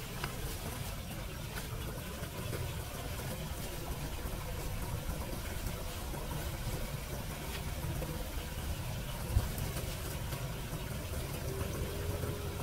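Steady low outdoor rumble with faint rustling and crackling as handfuls of wet leaves and debris are scooped into a plastic bag. There is one sharp knock about nine seconds in, and a faint engine hum near the end.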